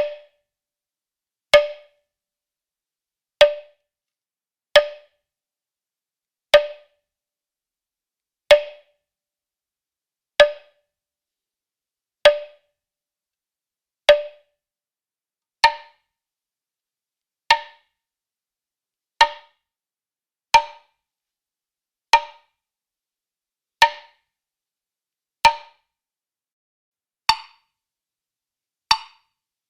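Woodblock struck once at a time, about every one and a half to two seconds, each hit a short dry knock that dies away fast. From about halfway the hits carry a higher note more strongly.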